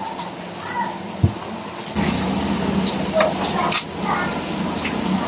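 A steady engine hum sets in about two seconds in. There is a short low thump about a second in and a few short knocks near the middle.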